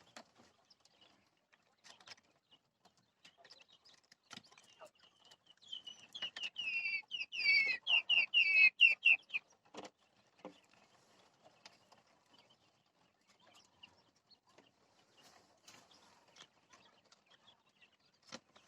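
Jumbo quail chirping: a rapid run of high calls starts about six seconds in, grows louder and lasts around three seconds. Faint scattered clicks and scratches are heard throughout.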